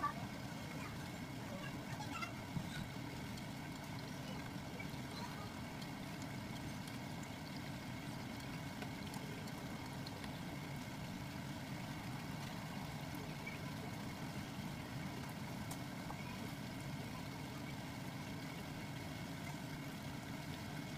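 Sliced shallots frying in a pot of bubbling oil on an induction cooktop, a steady low rumbling hiss, with a few light taps of chopsticks against the pot in the first few seconds.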